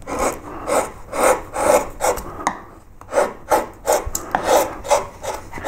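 A flat No. 3 carving gouge pushed by hand through wood in short slicing cuts across the grain, levelling a carved background. It makes a quick run of scraping strokes, about two or three a second, with a short pause a little after two seconds in.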